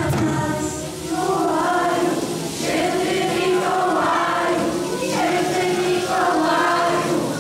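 A choir of young voices singing a Polish Christmas song together in phrases, over musical backing.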